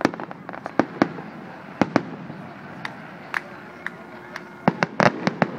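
Aerial firework shells bursting overhead: a run of sharp bangs and pops at uneven intervals, with a dense cluster of reports near the end.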